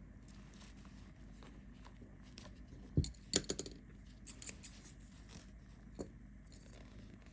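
Scissors handled and snipping on the work table, with a low thump about three seconds in followed by a few short clusters of sharp clicks, cutting the metal zipper down at the 4-inch mark.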